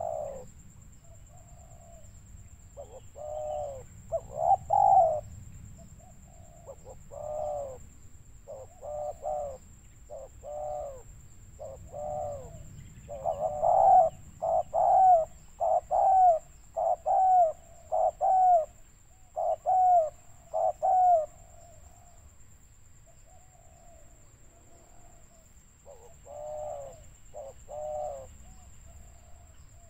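Spotted doves cooing: short coos repeated in bursts, loudest and most regular about halfway through at roughly one a second, fainter and more scattered before and after.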